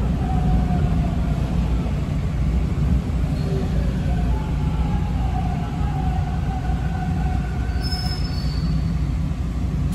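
Toronto subway train slowing to a stop at a station platform: a steady rumble of wheels and running gear with faint, drawn-out squeals from wheels and brakes as it brakes.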